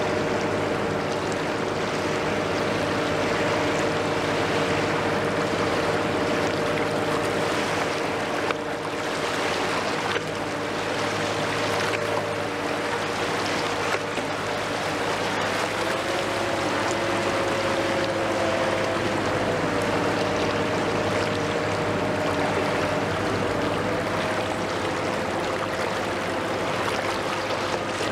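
Steady engine drone with several held tones, over an even hiss of noise like running water; the drone's pitch wavers and shifts slightly about halfway through.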